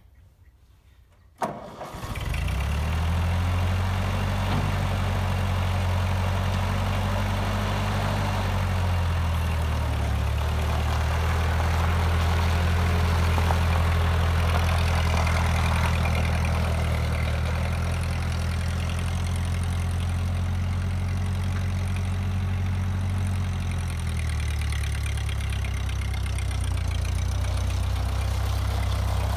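A 1943 Ford tractor's four-cylinder flathead engine starts about a second and a half in, then runs steadily as the tractor is driven. Its note drops a little near the end.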